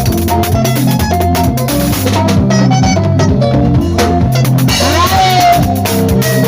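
Music with a drum kit and bass line keeping a steady beat, with a gliding higher note about five seconds in.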